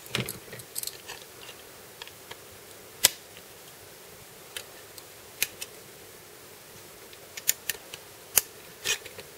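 Sharp clicks and light knocks of small plastic Mini 4WD kit parts being handled and pressed into place, scattered irregularly; the loudest come about three seconds in and near the end.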